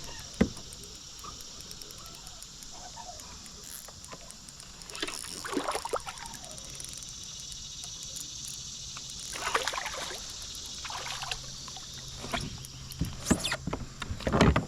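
Steady high-pitched insect buzzing, with a sharp knock about half a second in and several louder noisy bursts of splashing or handling sounds as a hooked fish is worked in beside a kayak.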